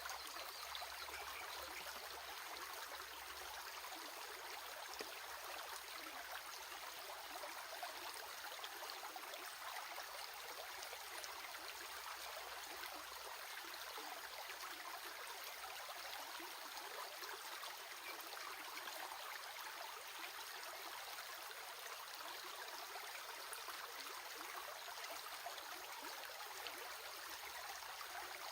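Water flowing in a stream, a steady, unbroken running sound.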